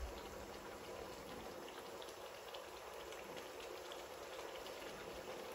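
Chopped tomatoes, peppers, onions and chillies simmering in oil in a wok: a faint, steady bubbling with many small crackles.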